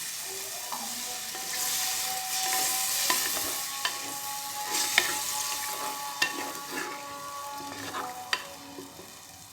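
Chicken curry gravy sizzling in the pan with water just added, with a spoon stirring and clinking against the pan now and then. The sizzle fades toward the end.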